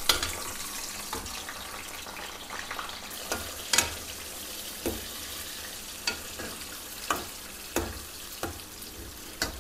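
Sliced onions sizzling as they fry in hot oil in a metal kadhai, with a steel spoon stirring them and knocking against the pan, about once a second in the second half.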